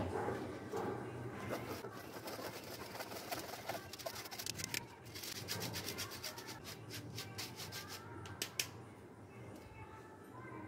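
Ragi (finger millet) flour being rubbed through a fine plastic mesh sieve by hand: a soft, scratchy rasping made of rapid repeated strokes, busiest in the middle of the stretch.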